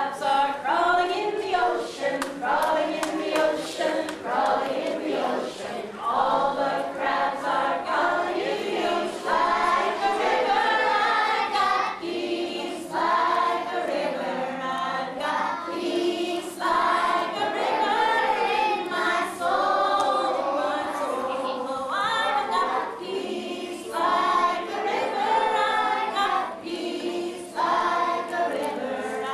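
A group of young children and a woman singing a song together, in continuous phrases.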